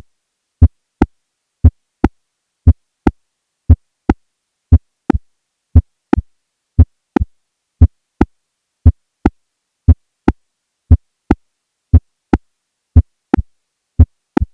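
Heartbeat of a patient with a mechanical aortic valve replacement: sharp, click-like paired sounds (S1 then S2) about once a second, the S2 being the crisp click of the mechanical valve closing.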